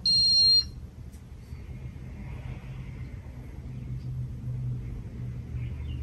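A single high electronic beep, about half a second long, opens. Then a ceiling fan's motor runs with a steady low hum that grows a little louder, its bearings badly worn.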